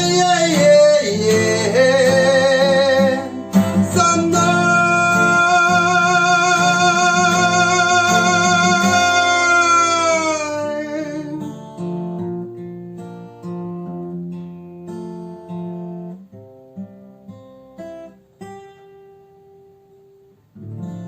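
Acoustic guitar strumming with a man singing one long wordless note with vibrato for about the first ten seconds. After that the guitar plays on alone with slower, separate notes that die away, and there is one last strum near the end.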